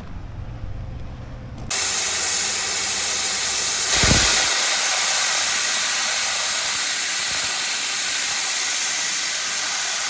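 Train letting off a loud, steady hiss that starts suddenly about two seconds in, with a heavier blast of it about four seconds in.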